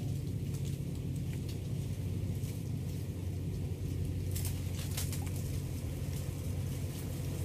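A small engine running at a steady, even low drone, with a few short high ticks over it about four to five seconds in.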